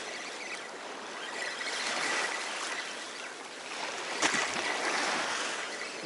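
Sea waves washing onto the shore: a steady rushing that swells and eases every few seconds.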